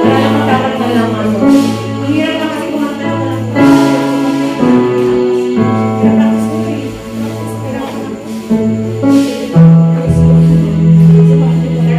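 Live church worship band rehearsing a praise song: lead and backup singers over bass guitar and drums, with long held bass notes.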